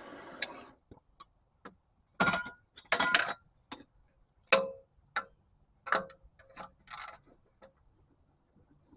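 A steady hiss that stops under a second in, then a string of irregular sharp metal clanks and clicks, some ringing briefly: hand tools working on stubborn, heat-soaked exhaust manifold bolts.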